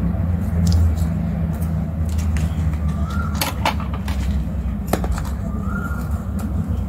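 Steady low background rumble, with a few sharp clicks and taps from paper stickers being pressed down and handled, about halfway through.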